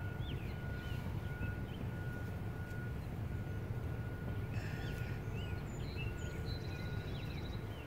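Backyard birds chirping and trilling over a steady low rumble and a faint steady high tone. About halfway through comes a brief rustle of straw mulch being pulled back around a transplanted seedling.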